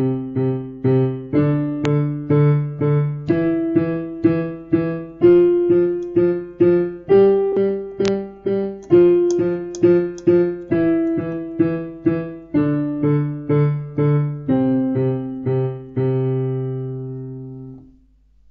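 A piano hand-independence exercise played with both hands: steady, even notes about two a second, with lower notes under a changing upper line. It ends on a held chord that rings and fades away near the end.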